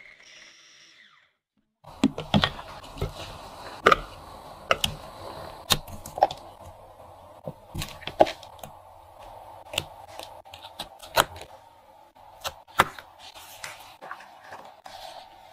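Irregular sharp clicks, taps and knocks, one or two a second, from a spoon and plastic drink cups handling frozen fruit slush, over a faint steady hiss.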